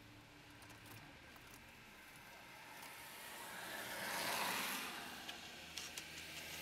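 A vehicle passing on a wet, slushy road: the tyre hiss swells, peaks about four and a half seconds in and fades, followed by a few light clicks.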